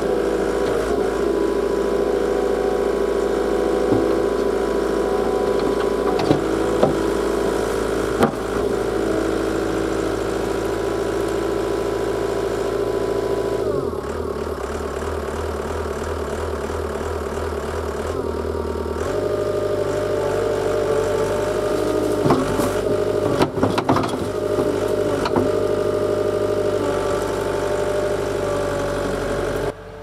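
Takeuchi tracked skid steer's diesel engine running close by, its note changing about halfway through as the engine speed shifts, with a few sharp knocks from the machine. The sound drops away suddenly just before the end.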